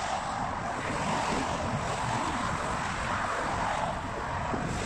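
Steady noise of car traffic driving along the bridge roadway beside the walkway: a continuous wash of tyre and engine noise with no single vehicle standing out.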